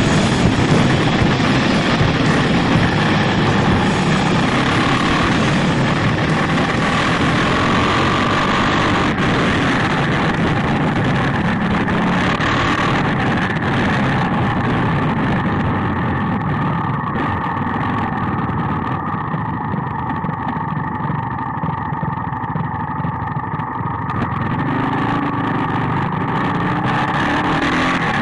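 Supermoto motorcycles running at road speed, heard on board, with steady wind rush over the engine note. The engine note shifts with the throttle.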